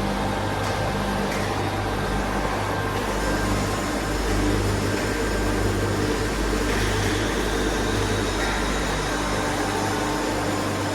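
Tornos-Bechler Deco 2000/20 CNC Swiss-type lathe running, a steady hum under an even hiss.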